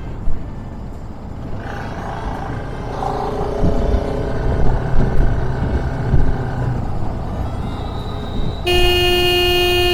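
Road and traffic noise, then a vehicle horn sounds once near the end as a loud steady tone lasting about two seconds.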